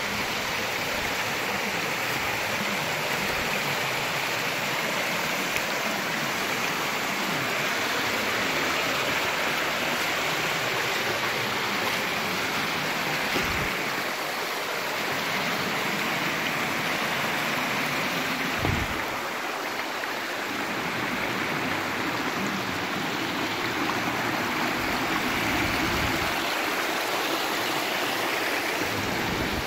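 Small mountain stream running over rock ledges in little cascades: a steady rush of water, with a couple of brief low thumps midway.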